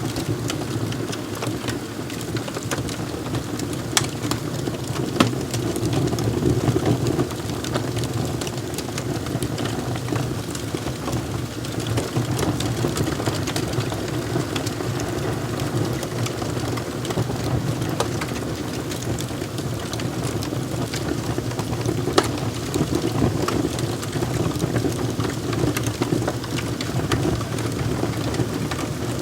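Wood fire crackling in a fireplace: a steady low roar of burning with scattered sharp pops and snaps, a few of them louder than the rest.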